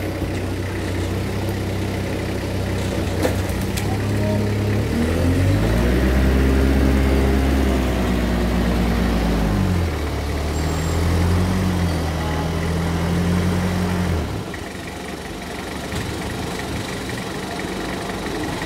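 TCM forklift engine running at idle, revving up about five seconds in and held higher for about four seconds, then dropping back to a lower speed. About fourteen seconds in, the engine note drops away.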